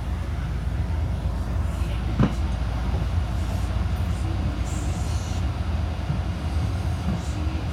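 Steady low hum inside a Fukui Railway F1000 tram car standing at the platform, with one sharp knock about two seconds in and a short hiss around five seconds.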